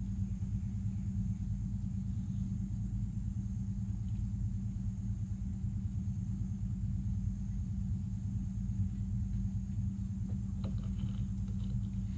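A motorboat engine running steadily, a low even drone that doesn't change, with a few faint small clicks near the end.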